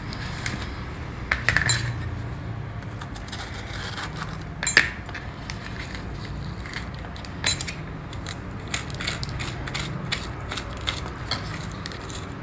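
Steel spoon scraping seeds and pith out of slit green chillies on a plastic cutting board: scattered light clicks and taps, the sharpest about four and a half and seven and a half seconds in, over a low steady hum.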